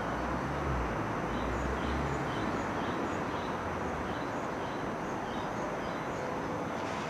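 Low rumble and steady noise of an approaching ScotRail Class 385 electric multiple unit, with a small bird chirping repeatedly over it, about two to three short chirps a second.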